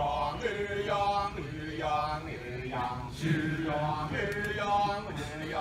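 Kecak chant: men's voices singing a run of held, melodic phrases one after another, about five in all, over a steady lower vocal line.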